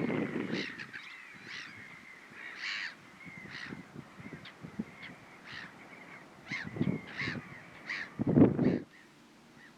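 A flock of crows cawing over and over, many short overlapping calls. Wind buffets the microphone in low gusts, the strongest a little before the end.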